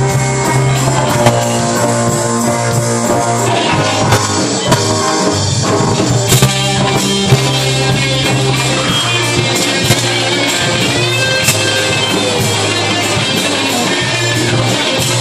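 A rock band playing live, with electric guitars and a drum kit.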